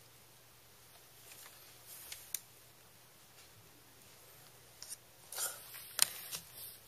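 Quiet room with a few short clicks and taps of small objects being handled on a tabletop, clustered near the end, the sharpest about six seconds in.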